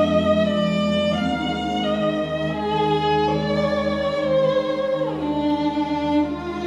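Recorded classical music: a solo violin playing a slow melody in long held notes over low orchestral accompaniment, with a downward slide about five seconds in.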